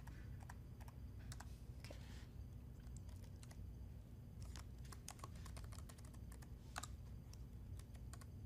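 Faint typing on a computer keyboard: irregular runs of quick key clicks, with a few sharper single keystrokes, over a low steady background hum.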